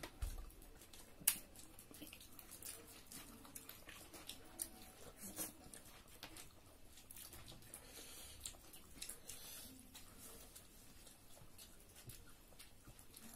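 Eating sounds picked up by a clip-on mic: soft, scattered wet clicks of chewing and lip smacking, with fingers mixing curry and rice on plates. One sharper click comes about a second in.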